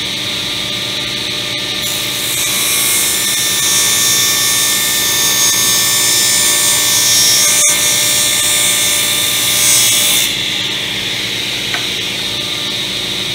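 Table saw running with a steady high whine. From about two seconds in until about ten seconds in, the blade cross-cuts a piece of plywood, adding a loud hiss. After that the saw runs on free.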